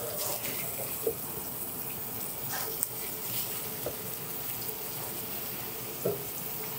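Seasoned chicken drumsticks sizzling in hot oil in a stainless steel sauté pan, a steady hiss, with a few soft knocks as more pieces are laid into the pan.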